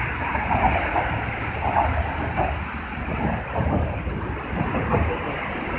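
Steady traffic rumble from the bridge's roadway, mixed with wind on the phone's microphone and faint voices of passing pedestrians.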